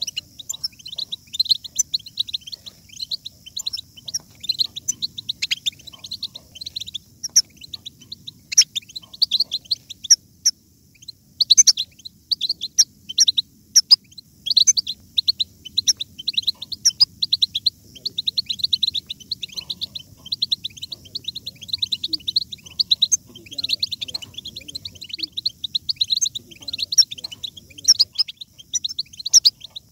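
Flock of European goldfinches twittering: a continuous stream of quick, high chirps and trills that thins briefly about ten seconds in.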